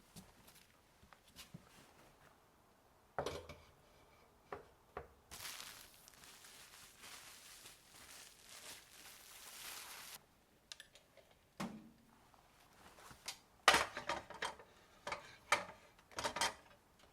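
Dishes and utensils clinking and knocking as kitchen items are handled and put away, with a steady hiss for several seconds midway and a quick run of clattering near the end.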